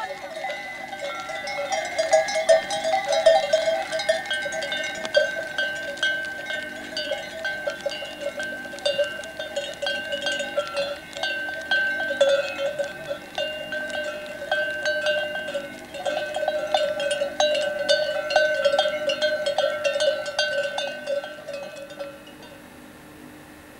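Many bells on a herd of goats clanking continuously as the animals walk. The clanking stops near the end.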